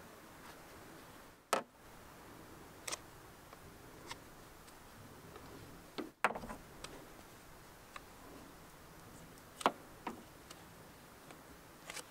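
A knife shaving bark off a long wooden stick: short, sharp cutting strokes at irregular gaps of one to three seconds, over a faint steady hiss.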